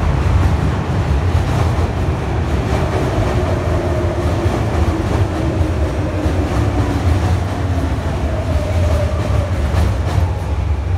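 Electric commuter train running past close by in an underground station: a steady heavy rumble of wheels on rails, with a faint whining tone over it.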